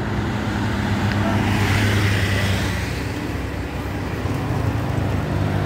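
Road traffic passing close by: engine hum from a motorcycle and a small truck, with tyre noise that swells about two seconds in and fades, then builds again near the end.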